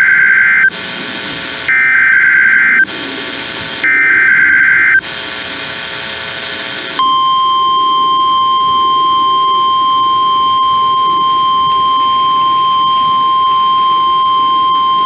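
NOAA Weather Radio weekly test signal: three short blasts of the SAME digital header data, about a second apart, then about seven seconds in the steady 1050 Hz warning alarm tone starts and holds, all over a faint radio hiss.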